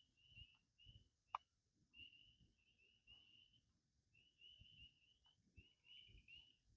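Faint, high bird chirps repeating in quick runs, with a single sharp click about a second and a half in.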